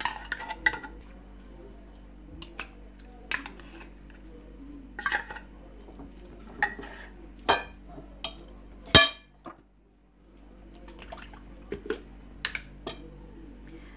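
Metal spoon clinking and scraping against an open tuna tin and a glass mixing bowl while the tuna is spooned out, in scattered knocks, the loudest about nine seconds in.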